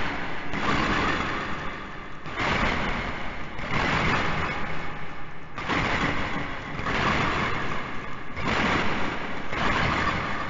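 Heavy metal chains rattling and clanking, rising and falling in swells every two to three seconds over a low rumble; the shackle-chain sound effect of a chained slave.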